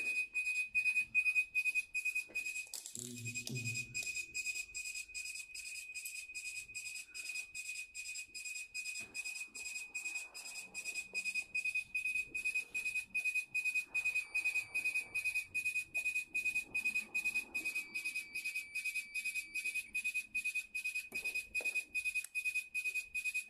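Cold-room refrigeration controller's alarm beeper sounding a steady, high-pitched beep about three times a second: a fault alarm, with error code 24 showing on a unit that has stopped cooling.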